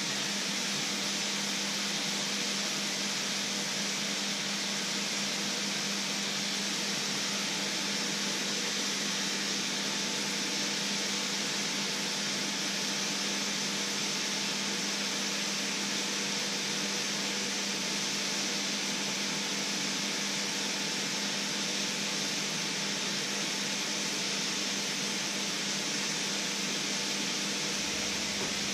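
Fat sizzling in a hot pan: a constant, even hiss, with a steady low hum underneath.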